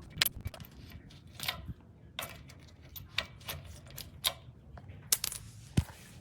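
Metal parts of a hitch-mounted bike rack clinking and knocking irregularly, about ten sharp clicks with a short ring, over a low steady rumble.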